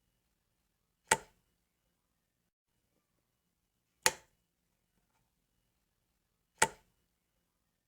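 Light switch being flicked, three sharp clicks about two and a half to three seconds apart.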